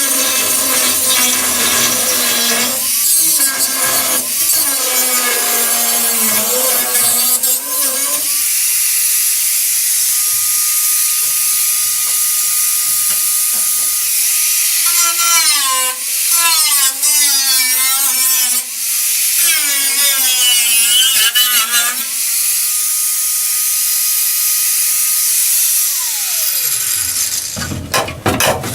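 Electric grinder working steel, its motor pitch dipping and recovering again and again as it bites under load. Near the end it is switched off and winds down, followed by a few sharp knocks.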